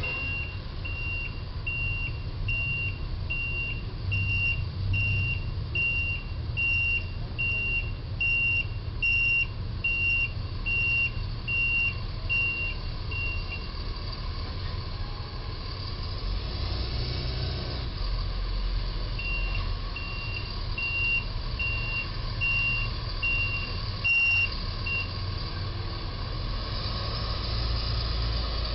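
Box truck's reversing alarm beeping at an even pace, a little over once a second, over a steady low engine rumble as the truck backs up. The beeping stops about halfway through, then starts again for several seconds as it keeps reversing.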